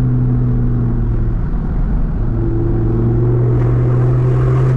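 A vehicle engine running steadily with a low drone while driving. The engine note briefly falls away about two seconds in and then picks up again.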